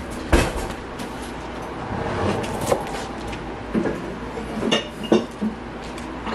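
Kitchen clatter: a series of sharp knocks and clinks as bowls, dishes and utensils are handled and set down during food prep. The loudest knock comes about a third of a second in, and a quick cluster of clinks follows past the middle.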